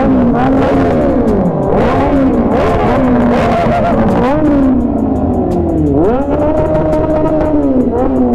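Several superbike engines revving in short overlapping blips, their pitch rising and falling again and again. About six seconds in, one engine climbs and is held at high revs for about two seconds.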